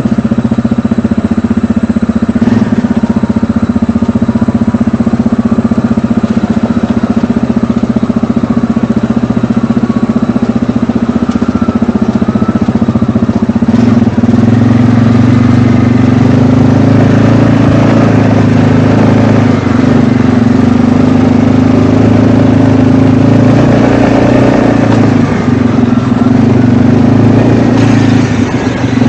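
ATV engine running steadily under way on a forest road, its note growing a little fuller about halfway through.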